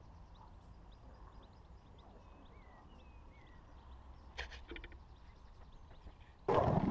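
Faint bird calls, short chirps and a few gliding notes, over a low outdoor rumble. A little past four seconds in comes a quick run of clicks and taps as a red fox noses right at the camera. Near the end a sudden loud clatter begins.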